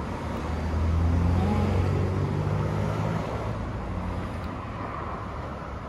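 A motor vehicle going by on the street: its low engine hum swells about a second in and fades away over the next couple of seconds, over steady traffic noise.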